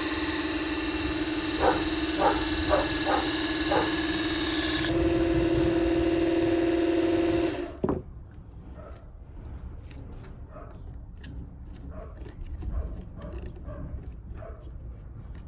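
Mini electric knife sharpener's motor running with a steady, many-toned whine that shifts pitch about five seconds in and cuts off suddenly near eight seconds, ending on a click. Faint scraping and clicking follow.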